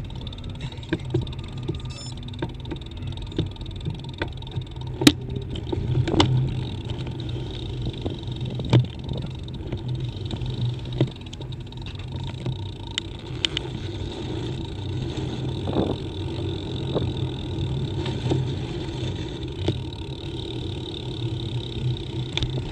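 Bicycle rolling downhill on a paved road, picked up by a camera mounted on the bike: a steady hum of the ride, broken by scattered sharp knocks and rattles, the loudest a few seconds in.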